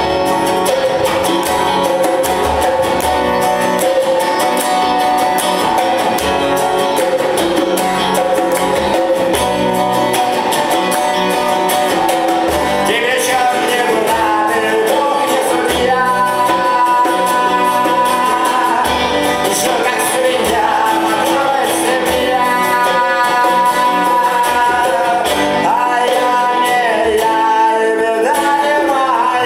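Live acoustic band playing a song on acoustic guitar, electric guitar and djembe, with the hand drum keeping a steady beat. A man starts singing about halfway through.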